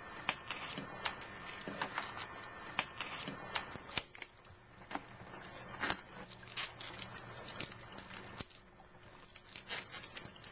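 Scattered clicks, scrapes and crinkles of hands working a plastic 2-litre pop bottle, as dry ice goes in and a rubber balloon is fitted over its neck.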